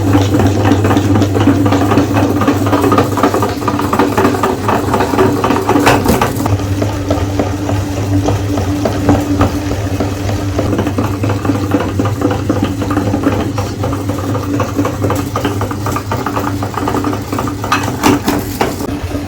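Electric meat grinder running with a steady motor hum while it grinds chocolate bars, with constant crunching and rattling over it.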